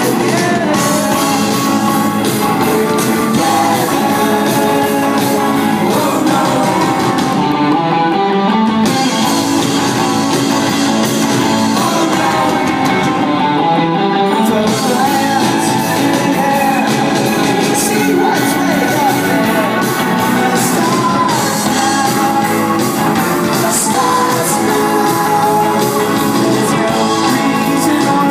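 Rock band playing live in a large hall: electric guitars, bass and drums, with a sung vocal, played loud and without a break.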